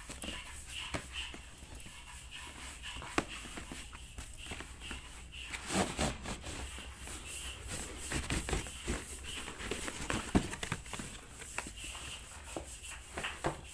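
Cardboard shipping box being handled and opened by hand: irregular rustling, scraping and knocking of cardboard, with a couple of sharper knocks, one about three seconds in and one about ten seconds in.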